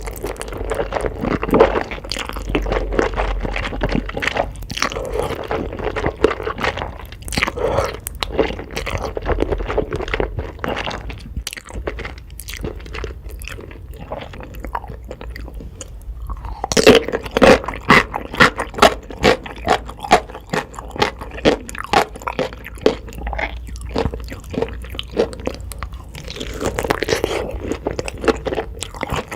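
Close-miked eating: chewing with repeated crunchy bites and wet mouth sounds, with a louder run of crunching a little past halfway.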